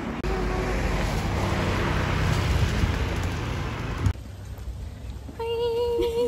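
Steady rushing outdoor noise, strong in the low end, that cuts off suddenly about four seconds in and gives way to quieter ambience; near the end a short, steady, held pitched note sounds.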